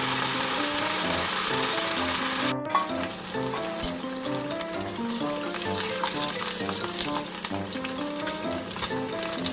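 Karaage (chicken pieces) deep-frying in hot oil: a dense, loud sizzle that drops about two and a half seconds in to a quieter sizzle full of small crackles and pops.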